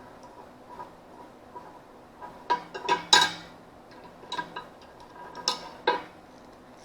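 Metal parts and hand tools clinking together while a lock nut is fitted onto a lawn tractor's shift lever linkage: about six sharp, irregular clinks, the loudest about three seconds in.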